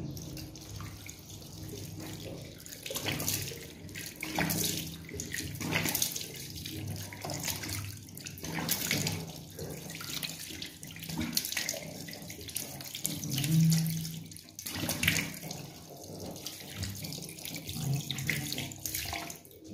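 Water running from a tap into a sink, with irregular splashes as a face is washed and rinsed by hand.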